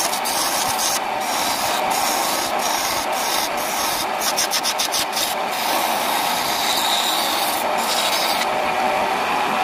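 Wood lathe running while a tool rubs against the spinning coffee-wood cup blank: a steady scraping hiss whose sharper top end cuts in and out many times through the middle.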